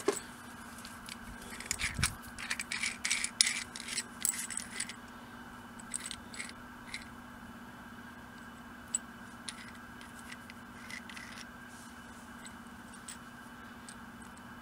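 Metallic clicking, rattling and scraping as a steel ruler is worked against a rear brake caliper piston to twist it back into its bore; a dense run of clicks in the first few seconds thins to occasional single ticks.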